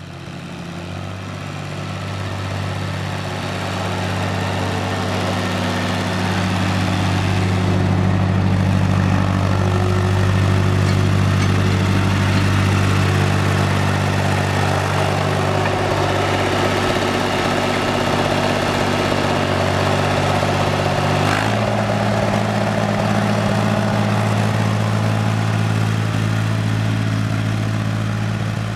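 Long 360 tractor engine running steadily as the tractor is driven slowly around. It swells over the first few seconds. About three-quarters of the way in there is a short click, and the engine note shifts abruptly to a different pitch.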